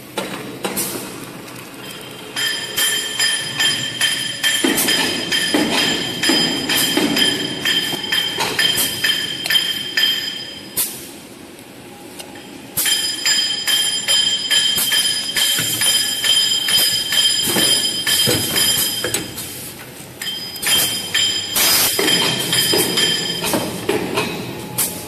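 Toilet-paper converting and packing machinery running: a steady high whine over constant clicking and clatter. The whine stops for about two seconds around the middle and drops out briefly again later.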